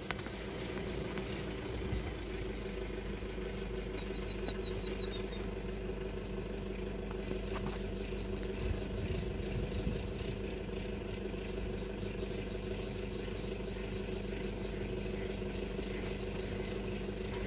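Safari jeep's engine idling: a steady, even hum. A short run of high chirps about four seconds in.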